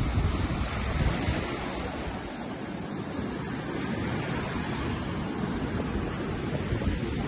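Ocean surf breaking and washing up a sandy beach, a steady rushing, with wind buffeting the microphone.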